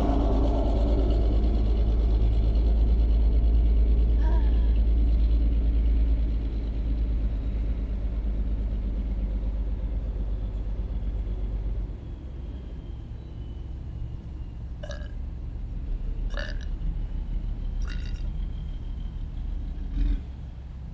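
A person burping, with several short burps in the second half, over a low rumble that is loudest for the first six seconds and then fades.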